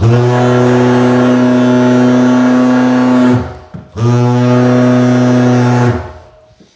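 Handheld tile vibrator buzzing with a steady low hum as it is run on a large-format floor tile to bed it into the thinset. It runs for about three and a half seconds, stops briefly, then runs for about two seconds more.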